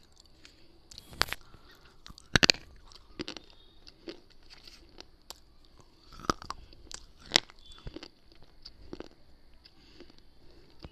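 Hard slate-clay pieces being bitten and chewed close to a small microphone held at the mouth: sharp, crisp crunches a second or more apart, the loudest cluster about two and a half seconds in.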